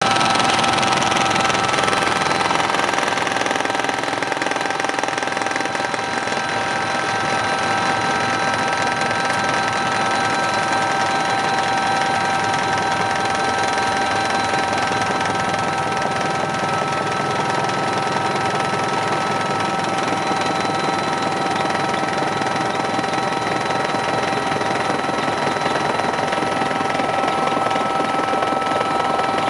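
Helicopter turbine and rotor noise heard inside the cockpit in steady flight: a loud, even rumble with constant high whining tones from the engines and gearbox.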